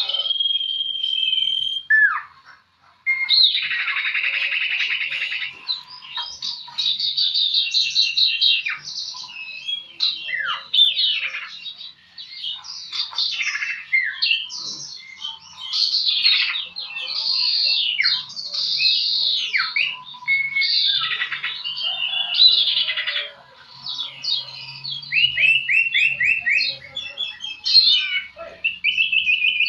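A sirpu (citho) songbird singing a long, varied song of quick chirps, trills and whistles. It opens with a held whistle, has a buzzy trill a few seconds in, and near the end a quick run of repeated down-slurred notes.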